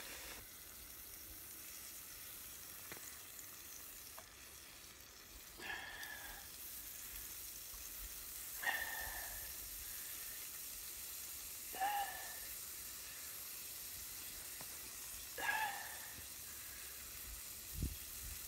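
Sliced salami frying slowly in a pan that is not very hot, a faint steady sizzle. A short, sharper sound comes about every three seconds, and there is a low thump near the end.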